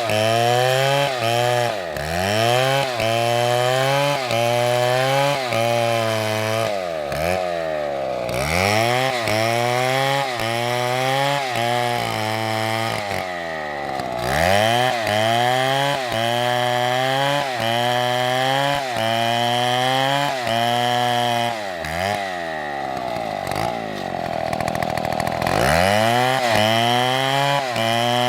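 Two-stroke chainsaw running under load, its engine speed dipping and recovering about once a second as it works. Near the end it drops to a lower, quieter pitch, then climbs back to full speed.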